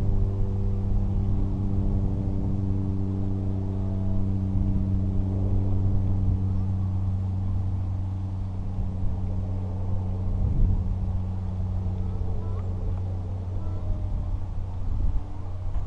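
A steady low motor drone with a hum that fades through the first half, over constant low rumbling noise.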